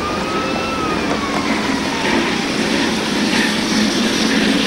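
NZR KA-class 4-8-4 steam locomotive KA 945 running past at speed with its train of carriages, giving a steady rumbling, clattering noise. A thin high whine rises and then falls in pitch over the first two seconds.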